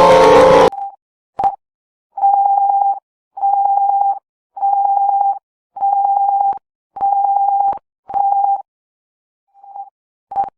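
Electronic alert tone: a series of six loud beeps on one steady pitch, each under a second long, about one every 1.2 seconds. It follows a loud siren that cuts off suddenly under a second in.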